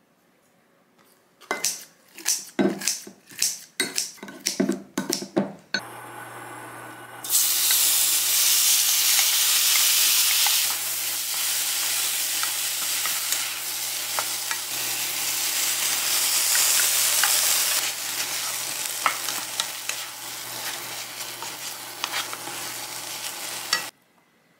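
Kitchen scissors snipping kimchi in a glass measuring cup, about a dozen quick cuts. Then chopped kimchi frying in a pan: a loud steady sizzle with the light clicks of wooden chopsticks stirring, over a low hum. The sizzle cuts off suddenly near the end.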